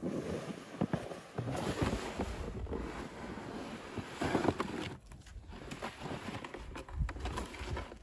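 Plastic sled loaded with split firewood dragged over deep snow, a scraping hiss broken by the crunch of boots in the snow, with wind buffeting the microphone at times.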